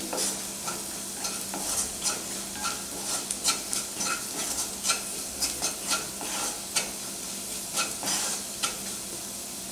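A wooden slotted spatula stirs diced onion, carrot and capsicum in a nonstick pan, making short scrapes and taps against the pan about once or twice a second. Under them the vegetables sizzle steadily as they fry in oil.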